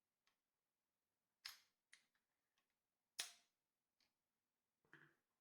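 Trigger mechanism of a 3D-printed crossbow clicking as it is worked: two sharp clicks about a second and a half apart, then a fainter, duller knock near the end.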